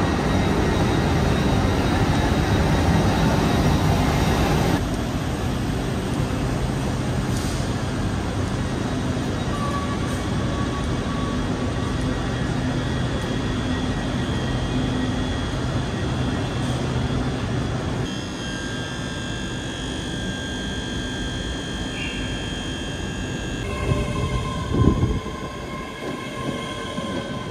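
Steady hum of a standing LNER Azuma train at a station platform, the sound changing abruptly a few times where shots are cut together. There is a short, loud thump near the end.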